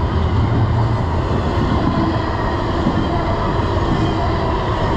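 Intermodal freight train cars, stacked containers and trailers, rolling steadily past: a continuous loud noise of steel wheels running on the rails.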